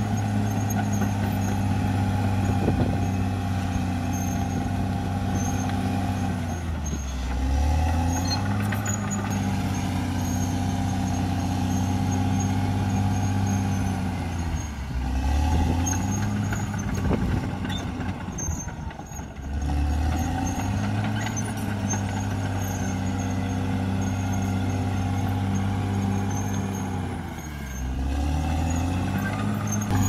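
Caterpillar D6R XL bulldozer's diesel engine running steadily. Its pitch drops briefly and picks back up four times, roughly every seven or eight seconds.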